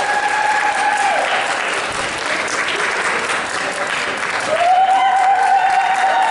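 Audience applauding at the end of a dance performance, with long, held whoops that start near the beginning and rise up again over the clapping about four and a half seconds in.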